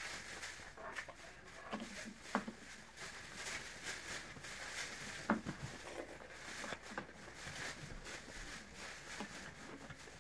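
A metal spoon clicking and scraping in a plastic cereal bowl, a few light taps spread through a quiet room.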